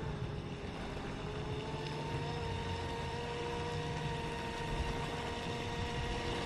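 High-pitched whine of a brushless RC boat motor (TP4070 on 6S) running the boat at speed, heard from a distance. The pitch holds steady, rising slightly about two seconds in, over a low rumble.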